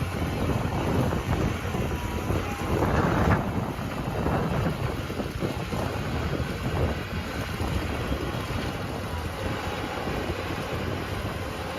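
Heavy digging machinery running, a steady rumbling noise with a louder surge about three seconds in, with wind buffeting the microphone.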